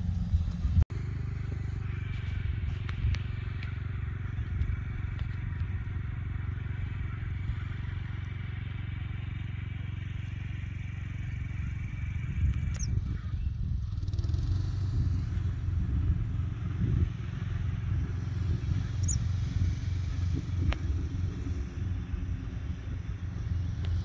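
Wind buffeting a phone microphone outdoors, a steady uneven low rumble. A faint high steady tone sits above it through the first half.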